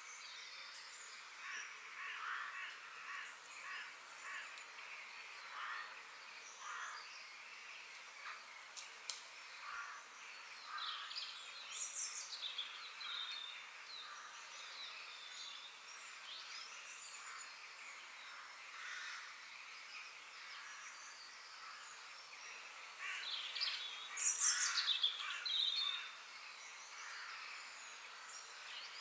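Outdoor ambience of several birds calling and chirping over a faint steady hiss, with a louder flurry of calls about three-quarters of the way through.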